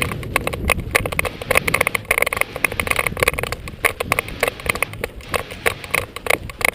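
Airsoft guns firing: a rapid, irregular run of sharp clicks and pops, several a second, over a low rumble.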